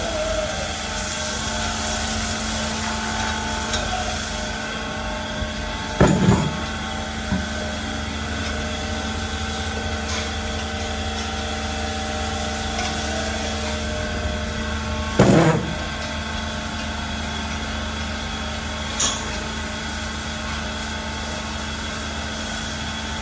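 A steady mechanical drone with several fixed tones and a low hum, broken by short loud sounds about six seconds in and again about fifteen seconds in.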